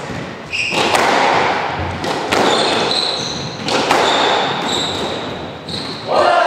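Squash rally: the hard rubber ball cracking off rackets and the court walls, several sharp hits about a second or so apart, each ringing briefly in the enclosed court. Short high squeaks of court shoes on the wooden floor come between the hits.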